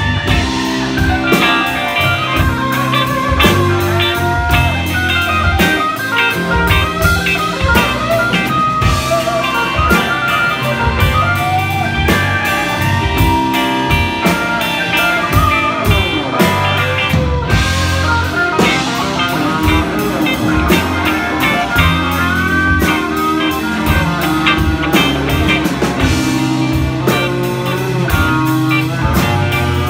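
Live blues band playing: a lead electric guitar with gliding, bent notes over a drum kit and a steady low bass line.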